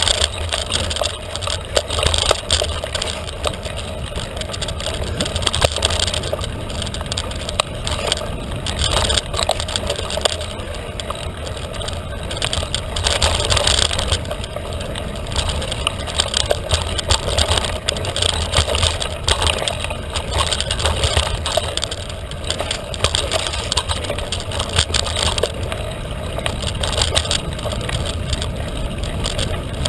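Felt carbon 29er mountain bike ridden fast along a dirt trail: a steady rushing noise with a low rumble, and a constant patter of small clicks and rattles from the tyres and bike over the ground.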